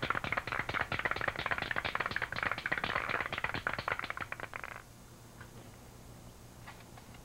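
Aerosol spray can of red oxide primer being shaken, its mixing ball rattling rapidly inside; the rattle stops about five seconds in, leaving only a few faint clicks.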